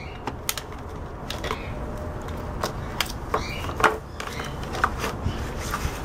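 Irregular light clicks and taps of a hand tool and plastic fan parts being handled, over a steady low background noise.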